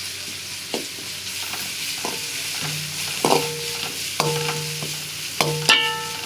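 Onions and ginger-garlic paste sizzling in hot oil in a kadai while being stirred. The spatula knocks and scrapes against the pan several times, and some strokes are followed by a short held tone.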